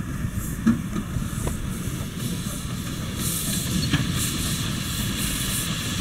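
Narrow-gauge steam locomotive hauling a passenger train past, its running a steady rumble with steam hissing from the cylinders. A run of short hissing puffs comes in the second half, and a few sharp clicks sound, the loudest a little under a second in.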